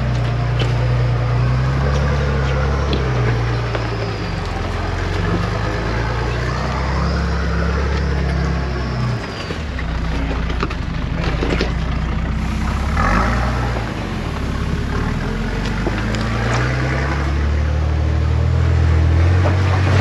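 Nissan GQ Patrol engine pulling at low revs as the 4WD crawls up rock steps in low-range reduction gearing. The revs rise and fall as the driver feeds the throttle, with occasional knocks from tyres and rocks.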